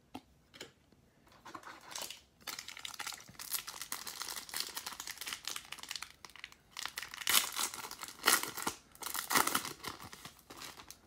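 Foil wrapper of a Panini Prizm football card pack crinkling and ripping as it is torn open by hand, after a couple of light clicks at the start. The louder rips come in the second half.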